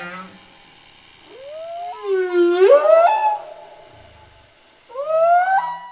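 Whale song: long, moaning cries that glide upward in pitch. One cry trails off just after the start, a louder rising one swells about two to three seconds in, and another rising cry begins near the end.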